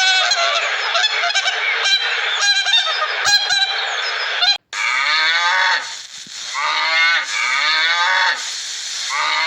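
Animal calls from two spliced clips with a brief silent cut about halfway: first short repeated calls over a noisy background, then a series of pitched calls, roughly one a second.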